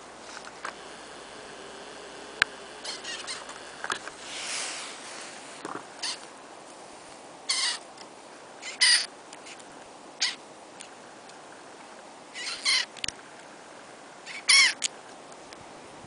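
Canada jays coming to a hand for food: a scatter of short, sharp calls and flutters, one every second or two, the loudest near the end.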